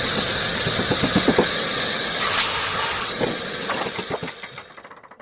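Homemade table saw's circular blade spinning with a steady high whine, with a brief louder, shriller stretch about two seconds in. The sound fades away near the end.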